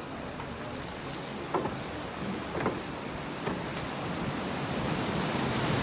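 Seawater lapping and splashing against a rocky shoreline, with a few short splashes and the wash getting louder near the end. Wind rumbles on the microphone.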